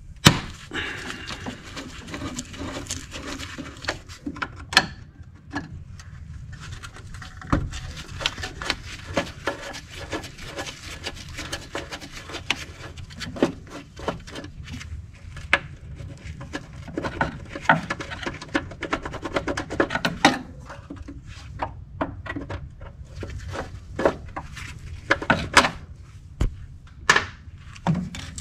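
Long screwdriver working screws out of the engine tin, with many irregular small metallic clicks, scrapes and knocks as the tool turns and the parts are handled.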